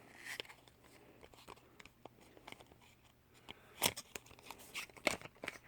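Faint handling noises as a lipstick tube is opened: light rustling and ticking, with a few sharp clicks and crackles in the second half.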